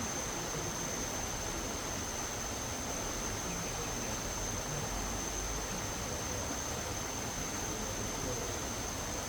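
Steady rushing noise with a constant high-pitched whine over it.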